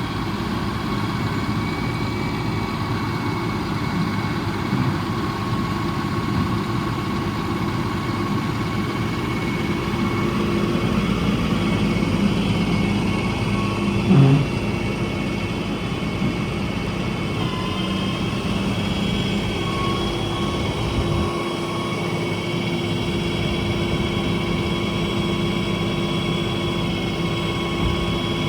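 A 6.7 Cummins ISB diesel engine running steadily, with a steady whine over it, and one brief louder sound about halfway through.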